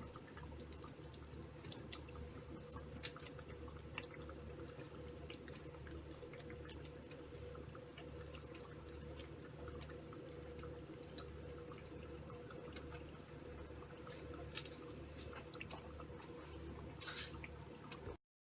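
Saucepan of sugar, cinnamon and water syrup heating on the stove: faint drips and small clicks over a steady low hum, with a few sharper ticks.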